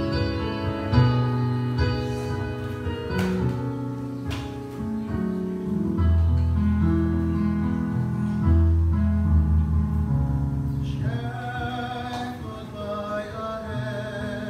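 A church choir singing with guitar accompaniment, on long held notes; the higher voices stand out more from about eleven seconds in.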